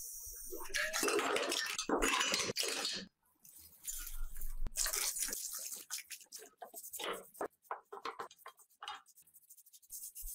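Pressure-washer water jet spraying on a stripped motorcycle frame in two spells, the first stopping about three seconds in. After that comes a series of short scrubbing strokes as metal parts are scoured by hand.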